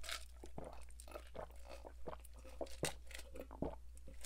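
Close-miked drinking: quiet gulps and swallows with scattered small clicks, over a faint steady low hum.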